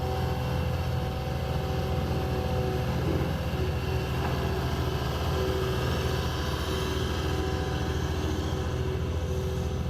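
Diesel engine of a Cat 236D skid steer loader running steadily at a constant speed.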